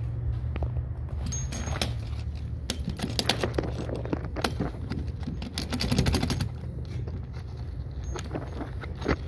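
Light metallic clinking and scraping as a steel threaded-rod anchor bolt with its washer is worked up through a hole in a concrete stem wall by gloved hands, in several clusters of clicks, busiest about six seconds in, over a steady low hum.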